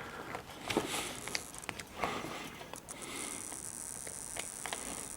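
Small clicks, knocks and scrapes of a Ruideng UM25C USB meter being handled and plugged into a USB power adapter. A faint steady high hiss starts about three seconds in.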